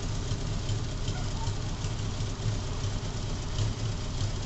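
Honda Gold Wing 1200's liquid-cooled flat-four engine, fitted with fuel injection and running steadily at idle on a stand, with faint scattered ticks over the hum. It has a minor exhaust leak that sounds annoying.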